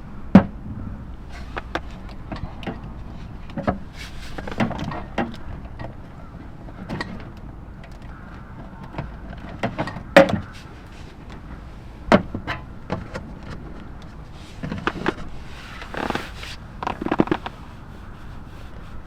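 A series of irregular knocks and clatters, the loudest just after the start and about ten seconds in, with bursts of rustling between them.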